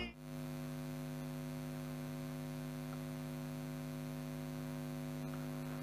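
Steady electrical mains hum, a low buzz that holds unchanged throughout.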